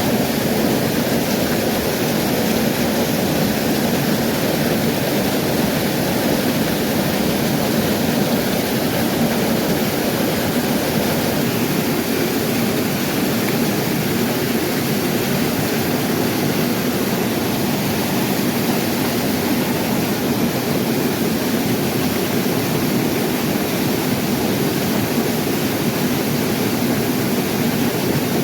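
Mountain trout stream rushing steadily over rocks, a loud, even hiss of water with no breaks.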